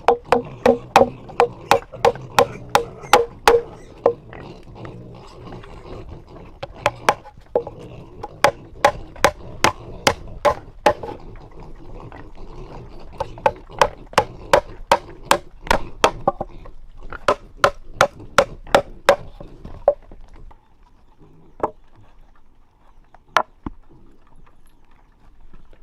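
Runs of sharp, even chopping strikes on wood, about two to three a second, with short pauses between runs; the strikes thin out to a few single knocks near the end.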